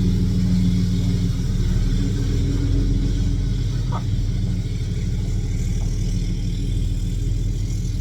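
A machine running with a steady low hum, with one faint tick about halfway through.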